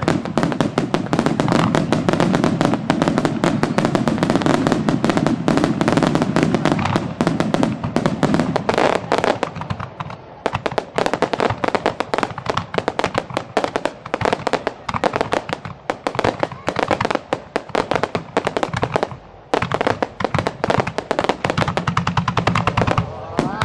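Aerial fireworks display in a rapid-fire barrage: a dense, unbroken run of bangs and crackles from many shells bursting in quick succession. Heavy low booms run through the first several seconds, and there is a brief lull just after ten seconds.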